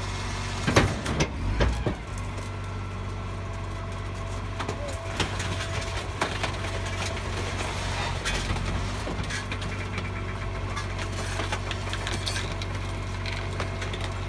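Rear-loading garbage truck's engine running steadily while rubbish clatters and crunches into its rear hopper, with a burst of loud knocks and crunching about a second in, then scattered smaller knocks and rattles.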